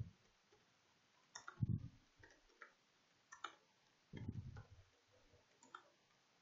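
Faint clicking of computer keyboard keys typed in short runs, with a couple of duller low thumps among the keystrokes.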